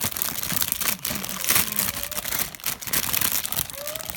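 Clear plastic bag crinkling and crackling as plastic model kit runners are handled inside it, easing off shortly before the end.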